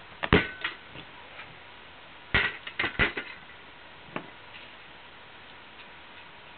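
Sharp clicks and knocks of small hard objects: a quick cluster of about three near the start, a cluster of four or five about two seconds later, then one lone click. A few carry a brief high ring.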